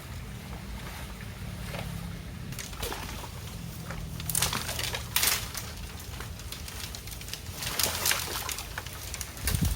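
River water splashing and sloshing as a long bamboo pole is pushed and worked through it, in several short bursts about four, five and eight seconds in and again near the end.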